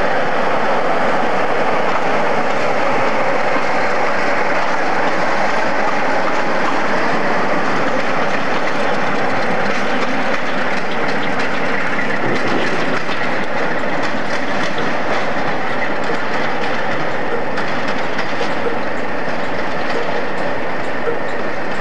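Diesel locomotive engine running steadily as the locomotive moves along the tracks, with wheels clicking over rail joints in the second half.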